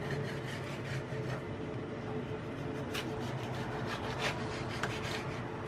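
Small paring knife sawing slowly through a large Castellano tomato over a wooden cutting board: faint rasping strokes, with a few light ticks, over a steady low hum.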